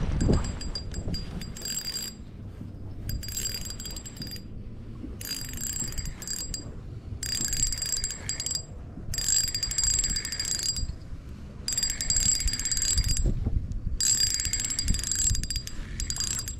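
Fishing reel's ratchet clicking in about eight bursts of a second or so each, with short pauses between, a thin metallic ring running through each burst.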